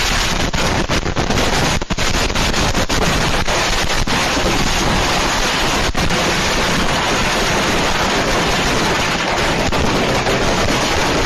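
Loud, harsh, continuous noise crackling with rapid pops, the pops thickest in the first three seconds.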